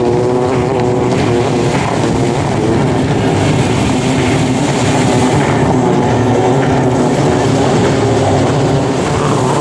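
Racing jet-ski engines running hard, a steady loud drone whose pitch keeps shifting.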